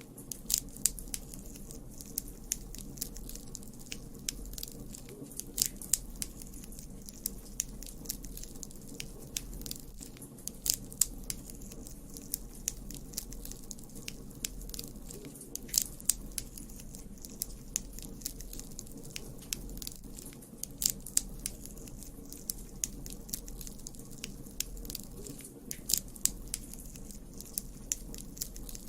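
Campfire crackling: a steady run of sharp pops and snaps from burning wood over a low rumble, with clusters of louder pops about every five seconds.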